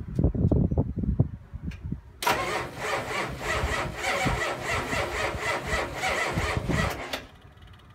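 Ford 7.3L IDI V8 diesel being cranked by its starter, a rhythmic churning that starts about two seconds in and stops after about five seconds without the engine catching: a cold start on weak batteries after the truck sat for three weeks.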